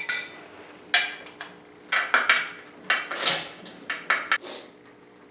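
Metal tools and engine parts clinking and clanking in a series of sharp knocks with short ringing, dying away a little after four seconds: hand work on a small-block Chevy 350 during teardown.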